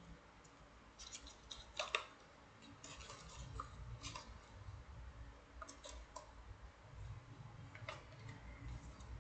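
Small metal wire puzzles being handled and taken out: scattered faint clicks and taps, the loudest about two seconds in, over a low handling rumble.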